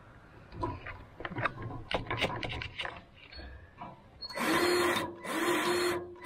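Cordless electric grease gun pumping grease into a tractor PTO shaft's grease fitting: the motor runs in three short bursts of under a second each, at a steady pitch. Before that come light clicks and knocks as the gun's coupler is worked onto the fitting.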